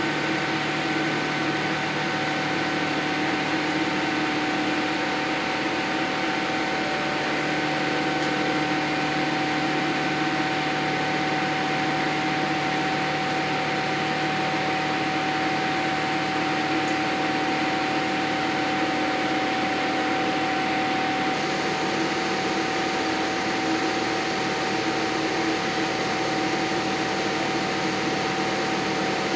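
Steady cabin noise of a Boeing 787-8 in flight: the rush of air and the hum of its Rolls-Royce Trent 1000 turbofans, with a few steady humming tones over it.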